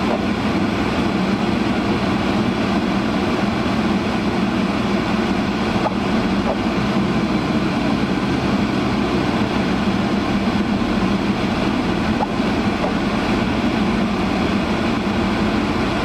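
Honda CR-V's defroster fan on full blast, a loud steady rush of air inside the cabin, over the low rumble of the car driving slowly on snow.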